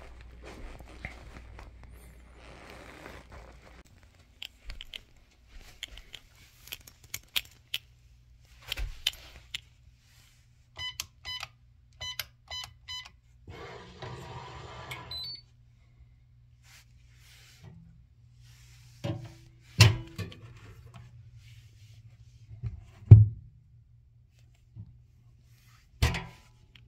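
Electronic hotel-room safe being operated: about six short keypad beeps, then about two seconds of the motorised bolt whirring, followed by several heavy thunks of the steel door, the loudest near the end.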